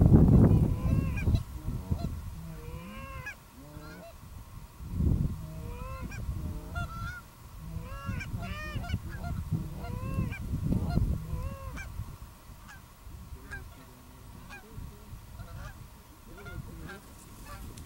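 Canada geese honking and clucking, many short calls overlapping as the flock comes in. Low gusts of wind rumble on the microphone, loudest at the start and again around five and eleven seconds in.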